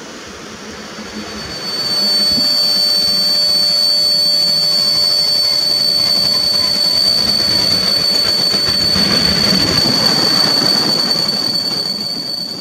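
Passenger train hauled by an EP07 electric locomotive rolling into the station close by, the coaches rumbling past with a steady high-pitched brake squeal as it slows. The noise swells sharply about two seconds in and stays loud.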